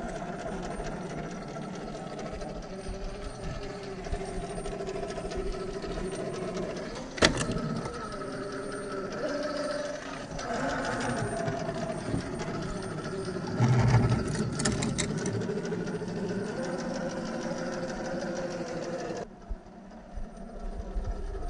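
Electric RC rock crawler's brushless motor and gear drive whining as it crawls over rock, the pitch shifting with throttle. There is a sharp knock about seven seconds in and a cluster of thumps around fourteen seconds. The whine drops quieter near the end.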